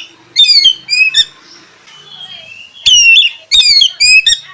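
Oriental magpie-robin (kacer) singing: loud, short bursts of sharp whistled notes that sweep down in pitch, about five in all, with a pause of over a second in the middle.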